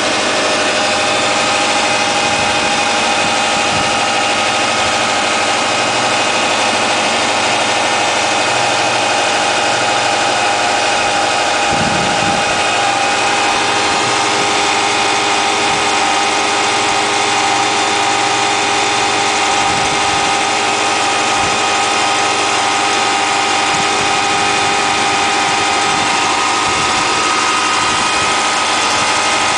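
2008 Subaru Impreza Outback Sport's 2.5-litre flat-four engine idling steadily, with a steady whine of several high tones running over it. This is the odd sound the owner hears from the engine after starting, in a car that otherwise runs well.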